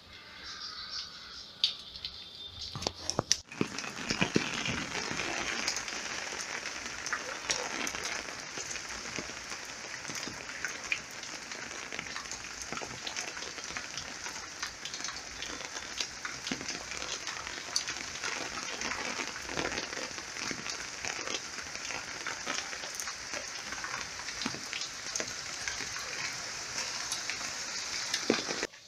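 Steady pattering hiss like rain falling on a surface, dense with small ticks. It starts abruptly about three and a half seconds in after a few sharper clicks, and cuts off just before the end.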